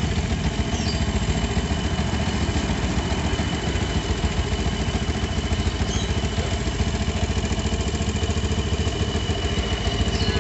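Yamaha Jupiter MX's liquid-cooled single-cylinder engine idling steadily when hot, with a steady high-pitched whine, the 'ngir-ngir' friction-like noise from the cylinder head area. It is a sign of overheating with the radiator fan not yet running, which the owner traces to the cooling system.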